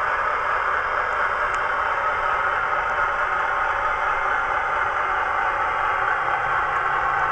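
Sound-fitted model Class 60 diesel locomotive: the DCC decoder's recorded Class 60 engine sound played through the model's bass reflex speaker, running steadily as the locomotive moves slowly. A lower hum joins in near the end.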